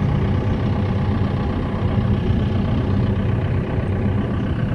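Ice cream van's engine idling, a steady low drone.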